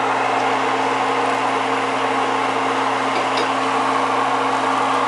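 Doughnuts deep-frying in hot oil in a pot: a steady sizzle, with a low steady hum underneath.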